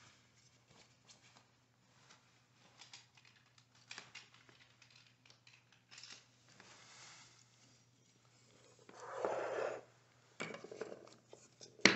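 Faint handling noise: scattered light clicks and taps, a short rustle about nine seconds in, then a few more clicks as a plastic bullnose trim gauge and pencil are handled.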